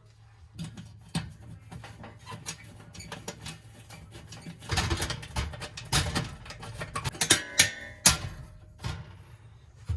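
Irregular metal clicks, scrapes and knocks as a screw is driven in to fasten an oven temperature sensor to the oven cavity wall. The louder clatters come around the middle, with some brief metallic ringing near the end.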